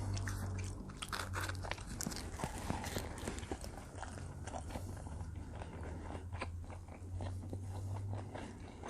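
Close-miked chewing and biting of combination pizza, with irregular wet crunches and crackles. A steady low hum runs underneath.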